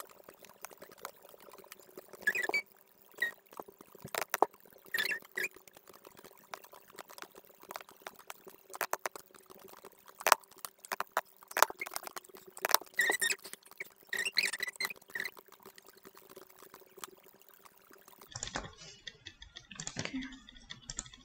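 Irregular clicking of a computer mouse and keyboard, with a few short runs of quick ticks, over a faint steady hum.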